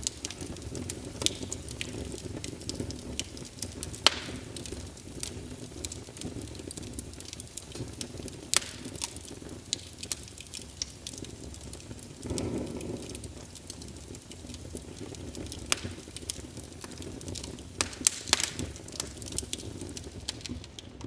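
Fire burning: irregular sharp crackles and pops over a steady low rumble, with a brief louder swell of flame about twelve seconds in.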